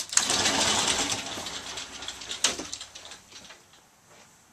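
Wardrobe doors being pulled open by hand: catches clicking, then a rushing, scraping noise that fades over about three seconds, with another click about two and a half seconds in.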